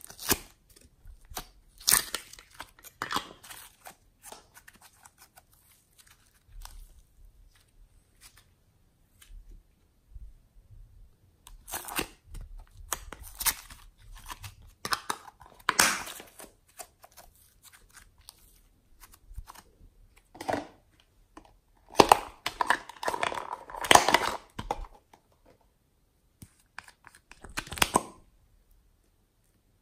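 Small plastic containers of slime add-ins being handled and opened close to the microphone: short scattered bursts of plastic handling noise with quiet gaps, the busiest stretch about three quarters of the way through.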